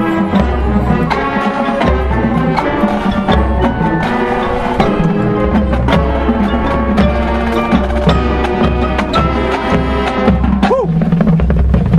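High school marching band playing: sustained brass chords over drums and struck percussion tapping out many quick notes, with a deep bass pulse underneath.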